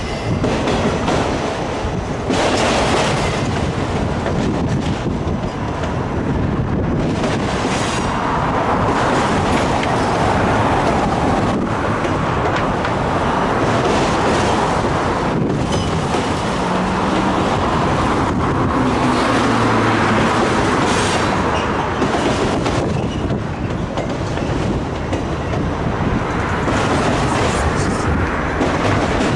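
Autorack freight cars rolling past on yard track: steady wheel-on-rail noise with a clickety-clack of wheels over rail joints.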